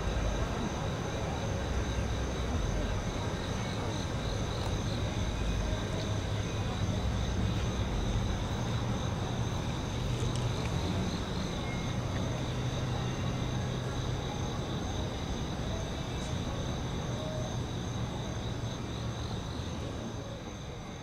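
NJ Transit ALP-45DP dual-mode locomotive running at a standstill with a steady low rumble, over the steady high chirring of crickets. The sound fades out near the end.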